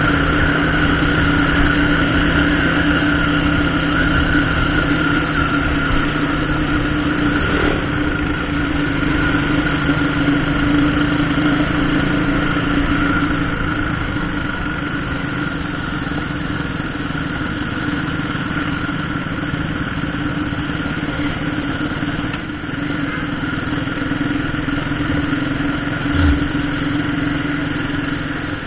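Motorcycle engine running steadily while riding, heard from the rider's own bike together with road and wind noise, with one short low thump near the end.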